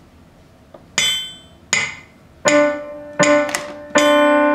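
Digital piano playing single notes near middle C and D, one at a time, in a slow even beat. The notes begin about a second in, five in all, and the last is held longer.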